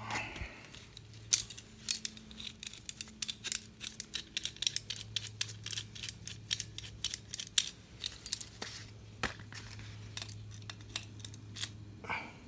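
Locking pliers being handled and clamped onto a power steering pump body: a quick, irregular run of sharp metal clicks and clinks, loudest about two seconds in, thinning out in the last few seconds.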